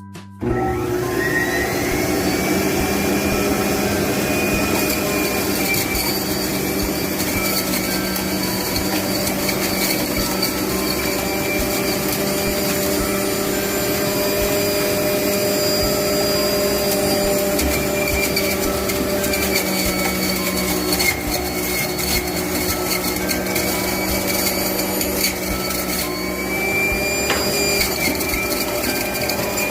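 Electric kitchen juicing appliance switched on: its motor spins up with a short rising whine and then runs steadily and loudly, grinding fruit and vegetables.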